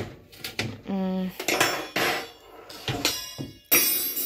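Metal baking tray being handled: a series of knocks and clatters, with a loud metallic scrape near the end.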